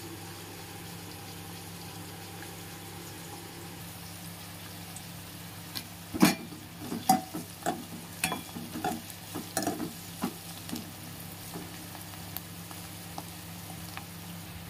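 Sliced onions, garlic and a dried red chilli frying in oil in an aluminium pot, with a steady sizzle. From about six seconds in, a run of knocks and scrapes as a spoon stirs them against the metal pot; the first knock is the loudest.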